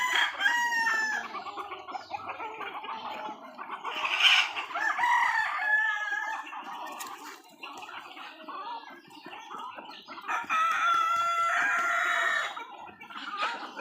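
Desi (Indian native) chickens calling, with roosters crowing and hens clucking. One long crow comes about ten seconds in, with shorter calls before it.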